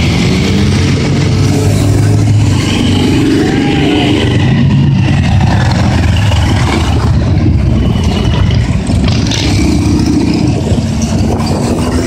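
Motorcycles riding past one after another, their engines running and revving as each goes by, in a continuous stream with no break.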